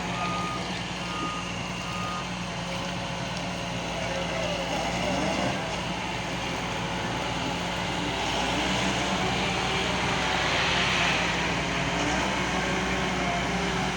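Doosan DX140W wheeled excavator's diesel engine running steadily under work, with its travel alarm beeping at one pitch for the first couple of seconds.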